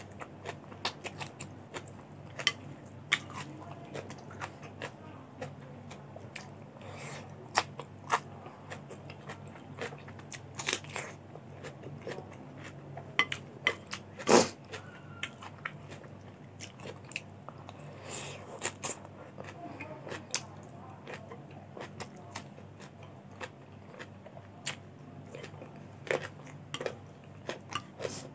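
Close-up chewing and crunching of crisp vegetables such as cucumber and onion-flower stems. A plastic spoon and fork click and scrape on a plate throughout, with the loudest sharp knock about halfway through.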